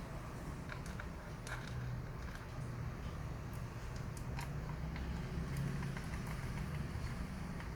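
Scattered light clicks and taps of small laptop screws and parts being handled and sorted, over a steady low hum.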